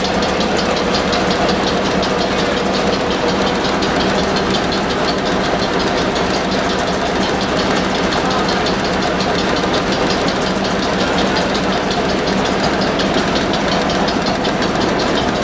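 Vertical single-cylinder Crossley stationary engine running steadily, with an even, rapid knocking beat.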